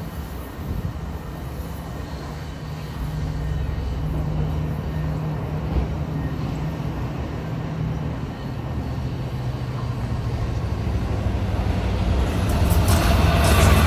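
LIRR diesel locomotive approaching with its engine droning low and steadily, growing louder. Near the end the train draws close and the wheels and rails add a louder rushing clatter.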